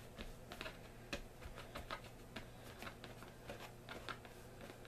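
Faint, irregular light taps and crinkles, several a second, of fingers and a towel dabbing around the inside of a thin clear plastic jello mold to spread cooking spray.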